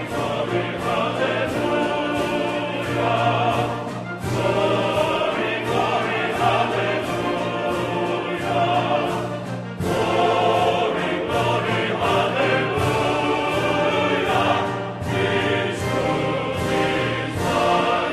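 Background music: a choir singing with an orchestra.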